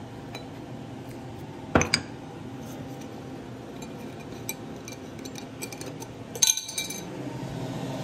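Glass spice jars clinking against each other as one is taken from a cabinet shelf, sharpest about two seconds in, with light ticks and knocks after. Near the end a short run of ringing clinks and rattles as the jar is handled.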